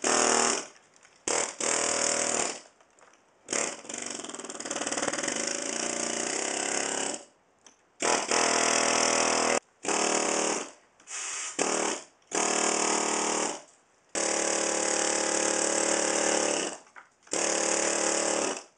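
Pneumatic air hammer chipping old plaster off a pool, run in repeated bursts of a second to a few seconds with short pauses between.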